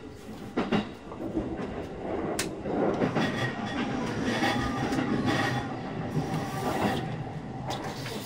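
E233-series electric train rolling into a station, heard from inside the front car. Its wheels clack over rail joints and points several times over a steady running rumble.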